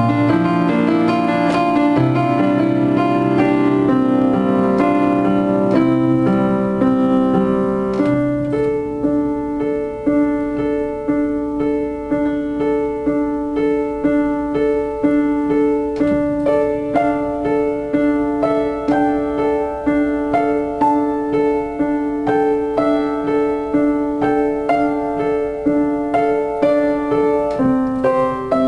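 Acoustic upright piano played solo, a slow new-age piece. Full, dense chords with bass notes give way about eight seconds in to a lighter, steady repeated figure in the middle register.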